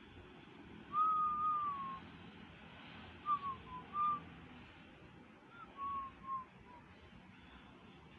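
A person whistling a slow tune. It opens with a long note about a second in that slides down, followed by a few short notes.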